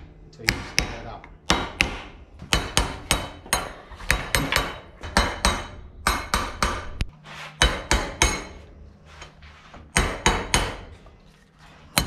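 Copper hammer tapping a nylon block to drive a new wheel-bearing outer race into a Toyota Land Cruiser front hub. Light taps come in quick runs of two to four a second and stop about a second before the end.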